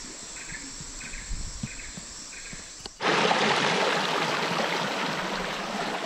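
Insects chirping in a regular pulse about twice a second over a steady high buzz; about three seconds in, this gives way suddenly to the loud, even rush of a flowing river.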